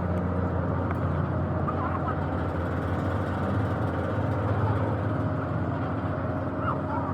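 A motor running steadily, a constant low drone.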